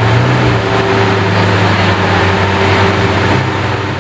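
Lamborghini Aventador SVJ's V12 engine running steadily at low revs with a deep, even drone.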